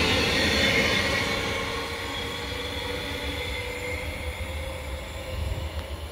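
Queensland Rail electric train pulling out and running away from the platform. Its wheel and motor noise fades over the first couple of seconds as the last carriage passes, then carries on as a fainter steady rumble while the train recedes.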